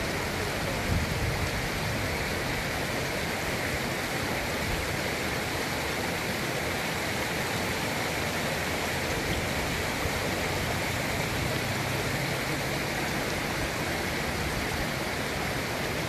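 Steady rushing of a stream's water flowing over rocks.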